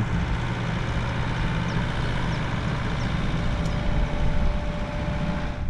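Large concrete mixer running steadily on a building site, a continuous mechanical drone.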